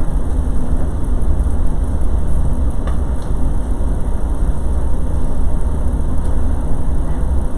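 Steady low rumbling background noise with no clear pitch, and a faint click about three seconds in.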